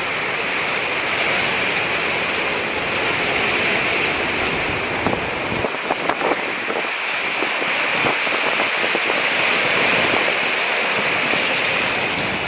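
Ocean surf washing and breaking against the shore as a steady rush, with a few short sharp taps midway through.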